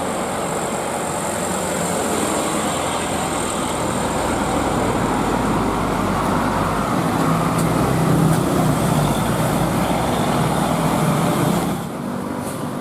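Large road vehicle, a bus, driving past close by: engine and tyre noise swells to a peak and then drops off abruptly near the end.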